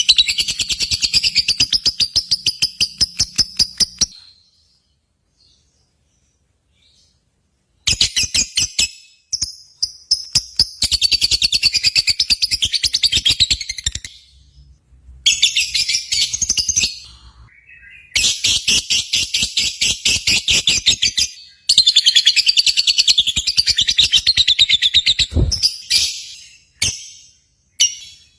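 Lovebirds singing long, rapid chattering trills of sharp repeated notes, in bouts of a few seconds broken by short pauses. About four seconds in they fall silent for nearly four seconds, and near the end the bouts shorten to brief bursts.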